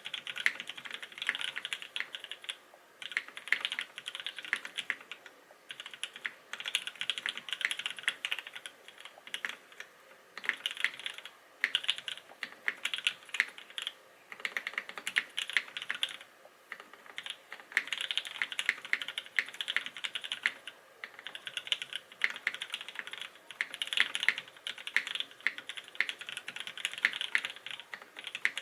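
Typing on a Smith + Rune Iron165 SE mechanical keyboard with lubed Gateron Black Ink linear switches, a carbon fiber plate and GMK Space Cadet keycaps. Keystrokes come in quick runs of a second or two, broken by short pauses.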